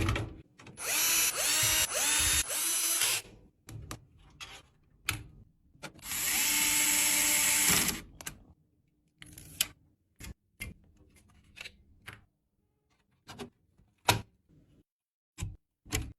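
Power screwdriver running in three short spurts, each whirring up in pitch, then one longer run of about two seconds, as screws are driven. Scattered short clicks and taps follow.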